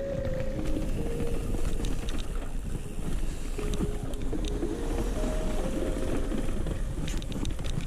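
A 5-inch FPV quadcopter's motors and propellers whining, the pitch stepping up and down with throttle, over heavy wind rush on its onboard camera's microphone.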